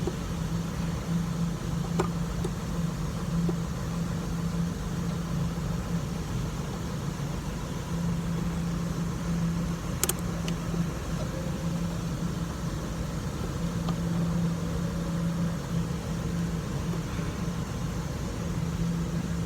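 A steady low mechanical hum like an idling engine, with a few light clicks and one sharper click about halfway through as the ABS sensor is fitted.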